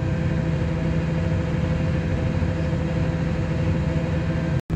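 Distribution transformer humming steadily: a low, even drone with a few fainter higher tones above it.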